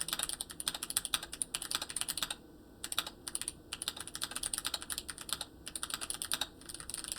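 Fast typing on a Hall effect mechanical keyboard: quick runs of many keystroke clicks, broken by a short pause a little over two seconds in and brief gaps later.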